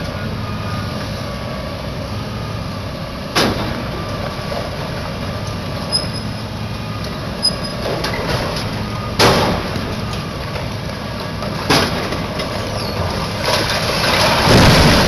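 Heavy demolition machinery running steadily, with three sharp bangs of impact spread through, and a louder rush of noise near the end.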